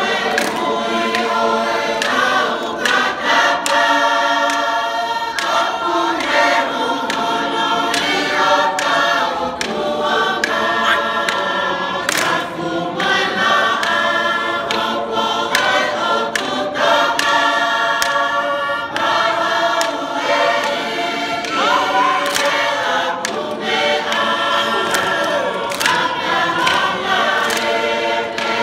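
Tongan lakalaka sung by a large mixed choir of dancers: held multi-part chords that shift every second or two, with scattered sharp hand claps.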